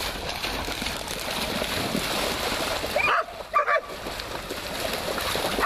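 Several dogs running and splashing through shallow floodwater, with two short barks about three seconds in.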